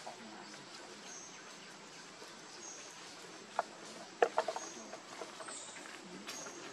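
Forest ambience with short, high, falling bird chirps recurring every second or two, and a quick cluster of sharp clicks about four seconds in.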